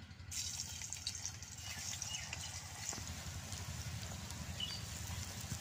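Besan-coated okra strips hitting hot oil in a kadai, starting to sizzle about a third of a second in, then a steady deep-fry sizzle with small crackles and pops.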